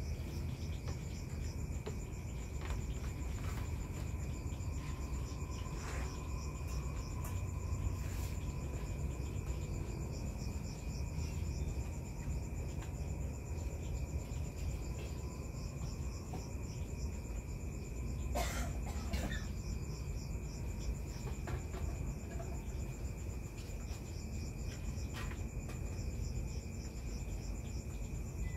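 Night insects such as crickets chirping steadily: a high, rapidly pulsing chirp and a lower continuous trill, over a low rumble. A few short sharp knocks cut in, the loudest about eighteen seconds in.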